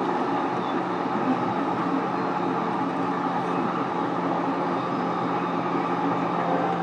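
Running noise inside a JR East E233 series electric train's motor car while it travels at a steady speed: an even rumble of wheels on rail with a steady low hum underneath.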